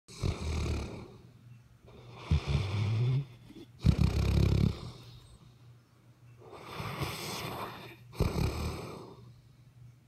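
Loud snoring: about five rasping, noisy breaths in ten seconds, each lasting about a second, with quieter gaps between them.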